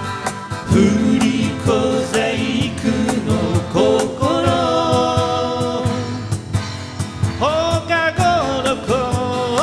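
Live folk band playing a Japanese folk song on acoustic guitars, electric bass and keyboard, with sung vocals over it.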